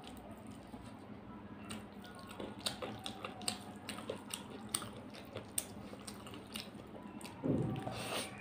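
Fingers mixing rice into chicken curry on a brass plate: wet squishing and small sharp clicks scattered through. Near the end comes a louder, deeper wet sound as a handful is taken into the mouth.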